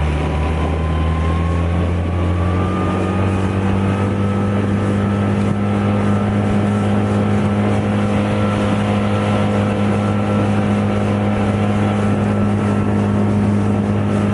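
Tohatsu 20 hp EFI four-stroke outboard at full throttle, its pitch climbing over the first few seconds and then holding steady at high revs as the inflatable boat runs on the plane.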